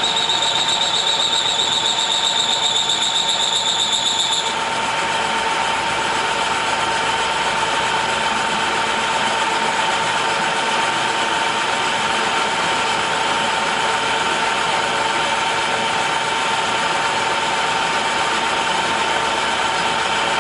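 Pratt & Whitney engine lathe running while facing the end of the rough stock, with a wavering high-pitched squeal from the cutting tool that stops about four and a half seconds in. After that, only the steady whine of the running lathe is left.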